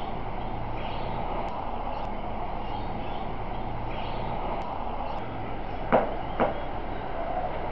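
Steady outdoor background noise with a faint low hum, broken by two sharp clicks about half a second apart about six seconds in.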